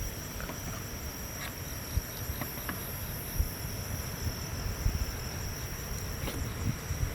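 Insects, crickets by the sound of it, chirring steadily in one continuous high note, over a low rumble, with a few small faint clicks.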